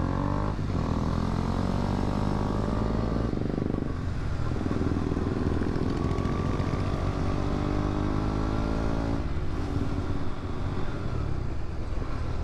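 KTM RC 200's single-cylinder engine running under way. Its pitch climbs steadily with the throttle and drops back twice, about 4 seconds in and again about 9½ seconds in.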